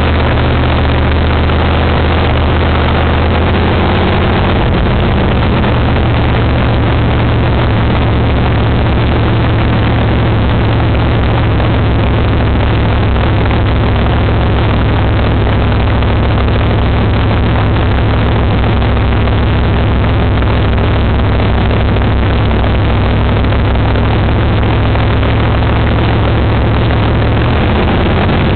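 A dirt-track race car's engine runs steadily right beside the camera. It is loud and even all through, with a strong low tone.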